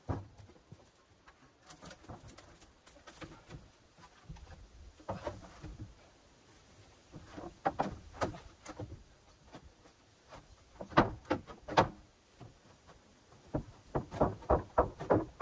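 Wooden roofing boards being handled and set onto a pole rafter frame: scattered knocks and scrapes of wood on wood, with a quick run of knocks near the end.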